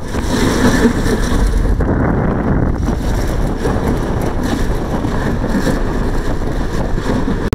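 Wind buffeting the microphone at the open door of a moving passenger train, over the train's steady running noise.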